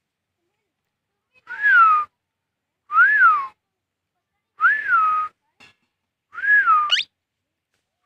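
Indian ringneck parakeet whistling the same short rise-and-fall whistle four times, about a second and a half apart. The last one ends in a quick upward squeak.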